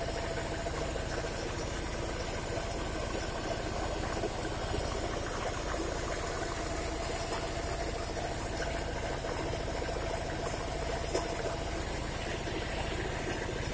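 Corn grinding mill driven by a small stationary engine, running steadily with a fast even low beat while it grinds corn into chicken feed.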